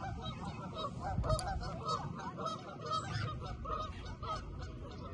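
A flock of geese honking: many short calls overlapping one another without a break, over low wind rumble.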